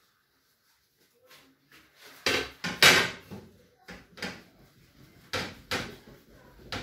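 Knocks and clatter of a glass stove-top lid being handled on a gas cooker. Nearly quiet at first, then a series of sharp knocks starting about two seconds in, the loudest about three seconds in.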